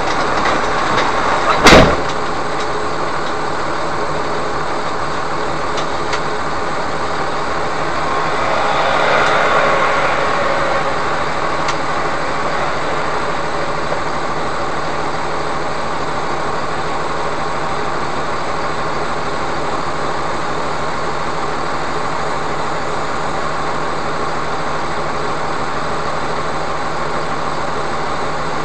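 Steady hum of a stopped vehicle's idling engine with outside noise, as heard from the dashboard. About two seconds in there is one sharp, loud thump, and around nine to ten seconds another vehicle swells past and fades.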